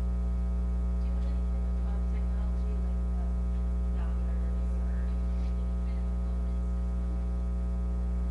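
Steady electrical mains hum: a constant low buzz with many evenly spaced overtones that does not change.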